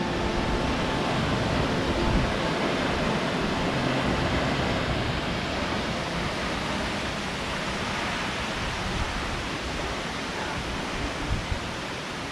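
Steady, even roar of rushing water from a large waterfall.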